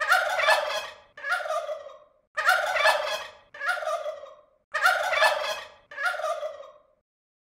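Turkey gobbling three times, about two and a half seconds apart, each gobble in two bursts, a longer one and a shorter one.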